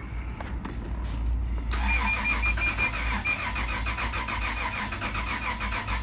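The starter motor of a 2000 Toyota 4Runner's 3.4 L V6 cranks the engine from about two seconds in, in a steady even rhythm, and the engine does not catch. This is the crank-but-no-start fault that followed a timing belt replacement, which the mechanic takes for a timing problem.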